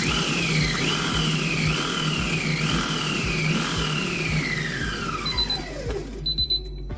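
Krups i Prep & Cook HP6051 food processor's Ultrablade spinning at top speed (Turbo 13), chopping onions: a high motor whine that sags and recovers several times as the onion pieces load the blade, then winds down in a falling whine as the 5-second run ends. A few short high beeps sound near the end.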